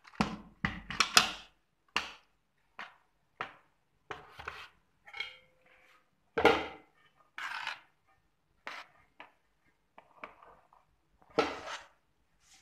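Metal spoon scraping and scooping through freshly churned cream in a metal pot, gathering the butter away from the buttermilk: a string of separate, irregular wet scrapes about a second apart.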